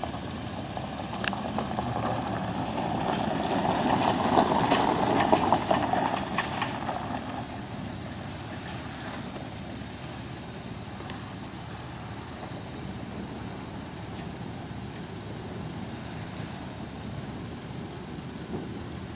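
2015 Ram 4500's 6.4-litre gas V8 running, louder for a few seconds near the start, then settling to a steady idle.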